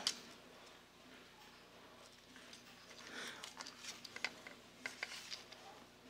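Faint handling noise of a plastic toy robot's opened shell: scattered small clicks and brief rustles as it is turned over in the hands and its wires and battery holder are fingered, starting a couple of seconds in.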